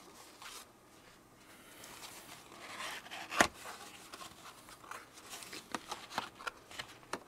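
Paper being handled and shuffled, a rustle that builds, then a single sharp click about three and a half seconds in, followed by a run of small crinkles and ticks.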